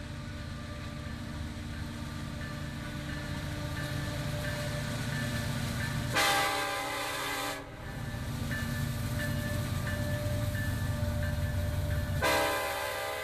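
Kansas City Southern freight train's diesel locomotives rumbling as they approach a grade crossing. The lead EMD SD70ACe sounds its air horn in two long blasts, the first about six seconds in and the second near the end: the crossing warning.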